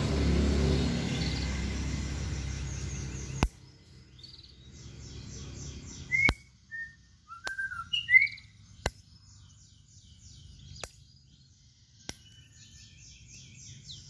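A low engine rumble from a vehicle that cuts off sharply about three and a half seconds in, then caged songbirds singing: a white-rumped shama and a canary. Clear whistled notes and fast, high, chattering trills come with a few sharp clicks.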